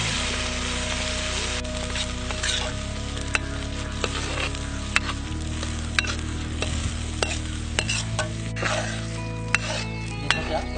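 Chicken curry sizzling in a pan as it is stirred, with sharp knocks of the spoon against the pan roughly once a second.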